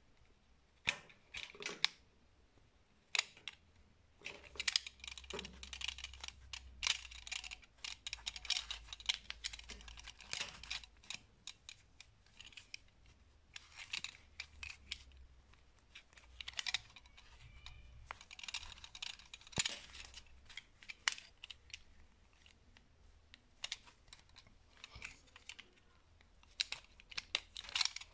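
Gloved fingers handling and bending a thin wire close to the microphone: irregular clicks, scrapes and rustles.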